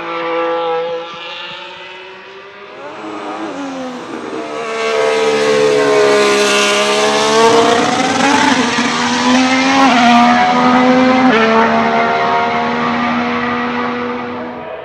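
Formula 1 car's V6 turbo-hybrid engine (Red Bull Ford power unit) running on track. One pass fades away in the first two seconds; then the car comes by loud from about four seconds in, its note dipping and climbing again, with sudden drops in pitch near ten and eleven and a half seconds as it shifts up, before fading near the end.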